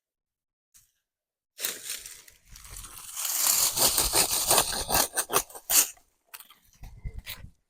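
Crunching and rustling in irregular crackly bursts. It starts about one and a half seconds in, is loudest in the middle and breaks into shorter bursts near the end.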